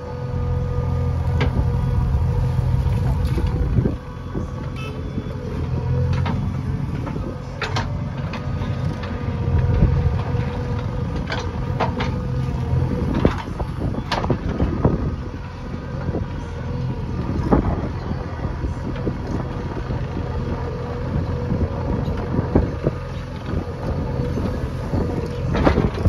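JCB backhoe loader's diesel engine running steadily under work, with sharp knocks scattered through it, some loud, like the bucket and arm clanking.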